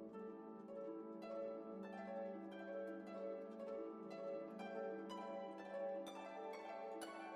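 Background music: a steady run of gentle plucked string notes, harp-like, each note fading after it is struck.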